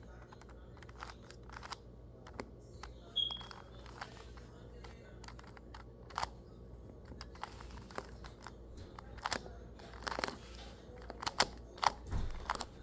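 A 2x2 Rubik's cube being turned through an algorithm: irregular quick plastic clicks and clacks as its layers are twisted, over a low steady hum.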